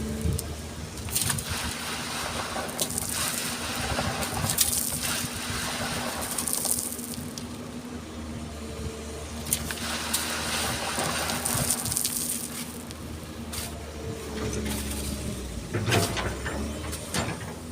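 Excavator diesel engine running, with repeated scraping and rattling as its bucket digs and dumps sand and stones.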